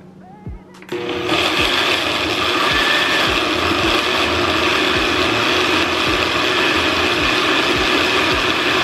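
Countertop blender with a glass jar running steadily, puréeing chipotle peppers, onion, spices and water into a marinade. It starts about a second in and stops right at the end.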